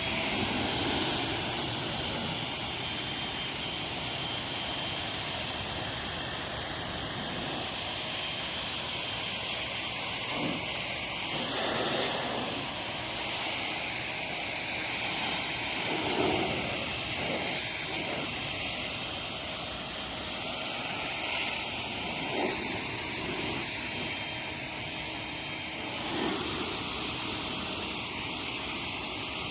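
Active 2.0 pressure washer spraying through a 40-degree nozzle tip, a steady hiss of the water jet rinsing foam off a car, swelling and easing now and then as the spray moves over the surface.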